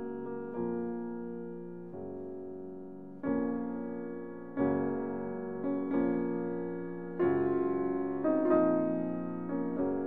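Background piano music: slow chords, each struck and left to fade before the next.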